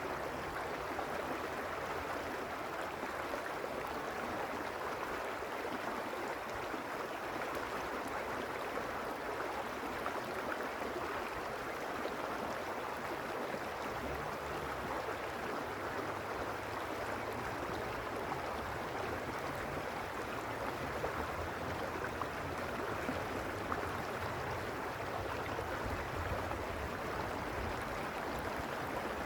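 Mountain stream rushing steadily over stones, an even, continuous water noise. A low rumble underneath grows stronger about halfway through.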